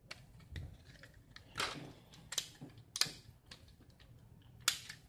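A handful of sharp plastic clicks and knocks at irregular intervals from a small spring-loaded toy pistol being worked by hand as its slide is pulled back, which is hard to pull.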